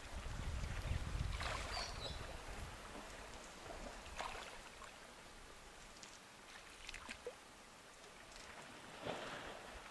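Faint outdoor wetland ambience: wind noise on the microphone for the first two seconds, then a faint steady hiss with a few short splashes or rustles spaced a few seconds apart.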